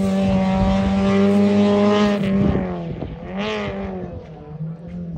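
Hillclimb rally car's engine pulling hard at high revs, its pitch climbing slowly, then dropping about two seconds in. A quick rise and fall of revs follows, and the engine grows fainter as the car climbs away.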